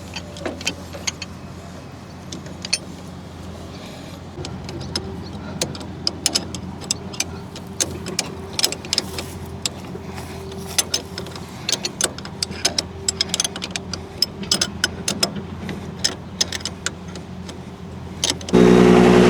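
Metal-on-metal clinks and taps of tools and fittings on the hydraulic pipe, over the steady low hum of the mini excavator's engine. Near the end the engine suddenly gets much louder and holds a steady, higher note as the machine is brought up to working.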